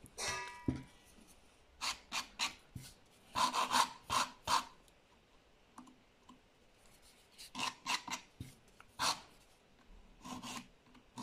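Nail file scraping against a plastic crystal nail tip in short strokes, in several separate bursts, roughening and shaping the tip so the gel will bond. A brief squeak just at the start.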